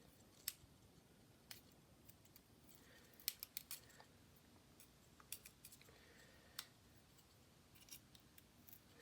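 Faint, irregular small clicks and taps, a quick cluster of several a little past three seconds and single ones scattered through the rest, over quiet room tone.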